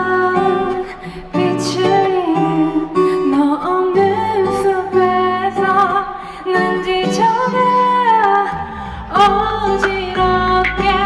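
Live band playing the instrumental introduction of a pop ballad: strummed acoustic guitar under a sustained melodic lead line.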